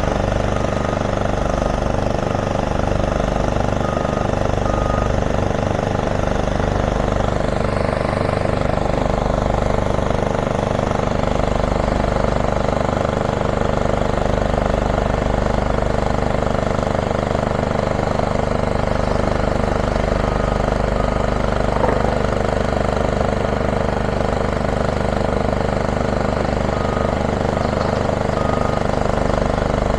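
Heavy diesel construction machinery running steadily, a low continuous engine drone, with faint short beeps a few times.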